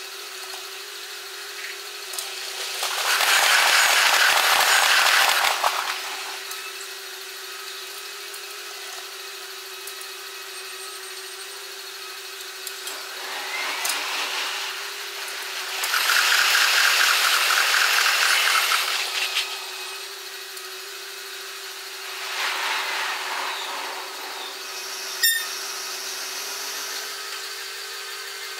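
Passing electric commuter trains heard at six times normal speed: four short rushes of noise as trains go by, over a steady hum, with a sharp click near the end.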